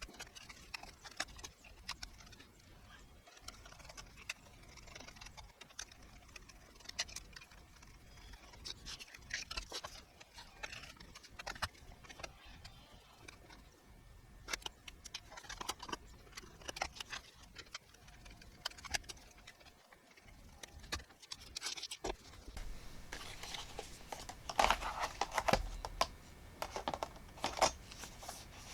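Scattered small clicks, taps and scratchy rustling of hands handling computer hardware parts, busier and louder in the last several seconds.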